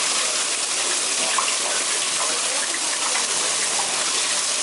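Fish sizzling on a hot grill: a steady, even hiss.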